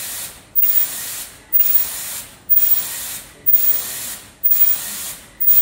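KN95 mask-making machine running, its compressed air hissing steadily. About once a second the hiss breaks off briefly and comes back as a loud burst of air, in step with the machine's cycle as each mask is thrown out into the box.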